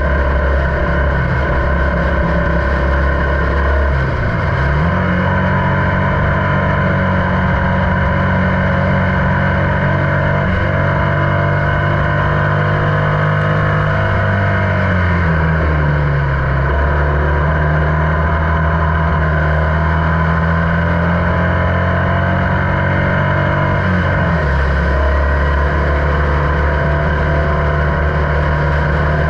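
On-board sound of a Formula Vee race car's air-cooled Volkswagen flat-four engine running hard at racing speed. The engine note shifts in pitch a few times, dipping and rising again about halfway through, as the car goes through gears and corners.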